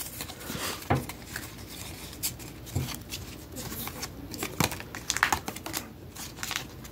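A stack of Pokémon trading cards being squared up and shuffled by hand: irregular soft clicks, taps and the rustle of cards sliding against each other.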